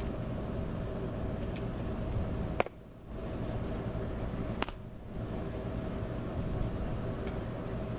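A baseball pitch smacking into a catcher's leather mitt: one sharp pop about two and a half seconds in, then a second, fainter snap about two seconds later, over a steady background rumble.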